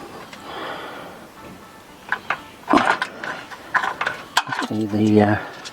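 Metal fuel line with its nut and olive fitted, scraping and clinking against the car's chassis as it is worked through an opening, with a run of sharp metal clicks in the middle. The nut on the end of the tube is too big to pass through the hole.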